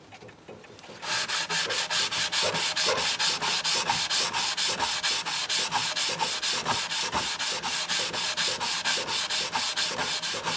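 Rapid back-and-forth scrubbing strokes, about five a second, over the JB Weld-filled crack in a wooden mantel clock roof, starting about a second in.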